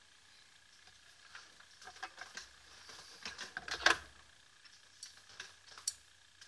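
Clicks, taps and light rattles of tools being handled and set down on a workbench after soldering, a dense cluster loudest near the middle with one sharp click, then a few single clicks near the end.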